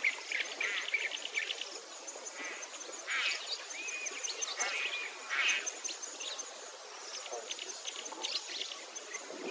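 Small birds chirping and twittering in quick runs of high notes, with a thin, high steady whine underneath.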